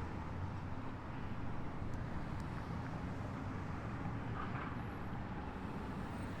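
Steady low engine rumble outdoors, from motor vehicles or heavy machinery.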